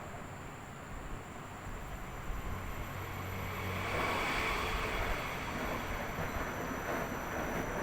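Washing machine running, a steady low rumble with churning noise over it. The sound grows louder and brighter about four seconds in.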